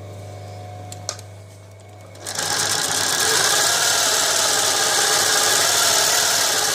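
Class 332 post-bed shoe sewing machine: its electric motor hums, with a click about a second in, then at about two seconds in the machine starts sewing and runs steadily at speed.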